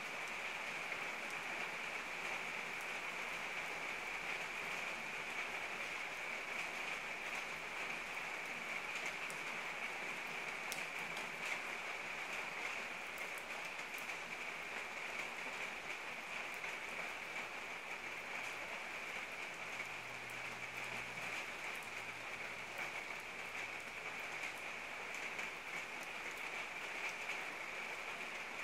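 Steady rain falling, an even hiss with a few sharper drop ticks about ten to fourteen seconds in.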